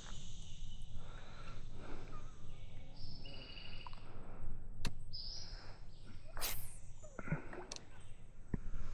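Outdoor summer ambience: a steady high insect buzz with a bird calling a few short chirps, and a few sharp clicks partway through.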